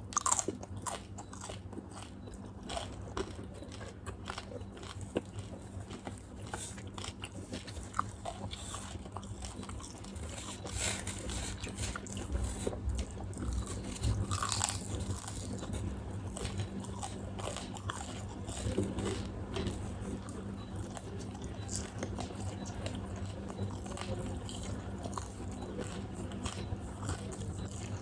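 Close-miked eating of fried quail by hand: irregular crisp crunching bites and wet chewing, going on throughout.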